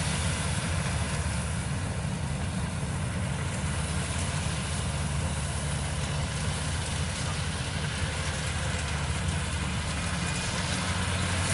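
Kubota rice combine harvester running steadily as it cuts and threshes rice: a constant low engine drone with a hiss over it.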